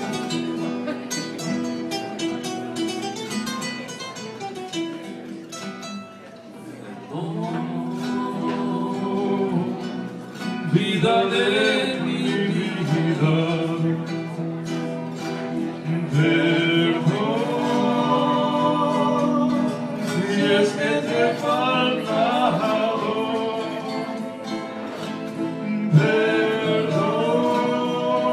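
Acoustic guitars playing a bolero introduction, then a man's voice comes in singing about ten seconds in, with the guitars accompanying him.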